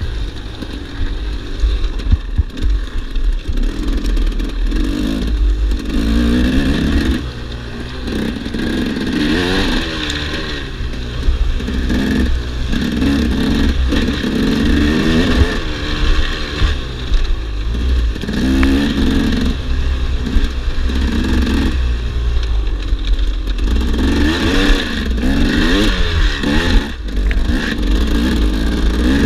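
2008 KTM 300 EXC's single-cylinder two-stroke engine being ridden hard, revving up and dropping back again and again as the throttle is worked along a rough trail. There are a few sharp knocks about two seconds in.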